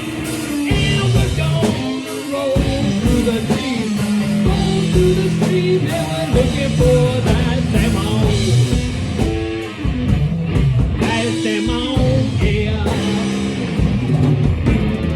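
Rock music with electric guitar, drums and singing.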